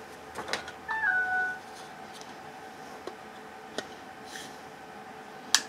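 LG Stylo 4 smartphone playing its short startup chime as it boots: a brief pitched tone that steps down in pitch about a second in. Light handling clicks around it, and a sharp click, the loudest sound, near the end.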